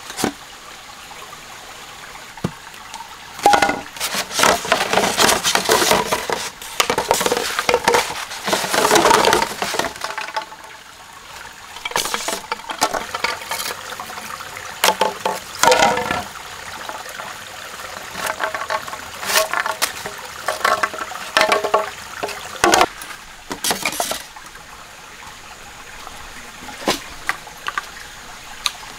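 Water pouring and splashing out of bamboo-tube fish traps as they are tipped and shaken, in repeated irregular bursts with hollow knocks and clinks of the bamboo, over a steady stream. The bursts thin out over the last few seconds.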